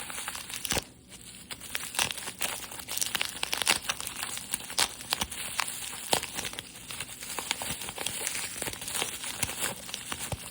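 Plastic blister packaging and cardboard backing card of a Hot Wheels car being crinkled and torn open by hand, an irregular run of crackles and snaps.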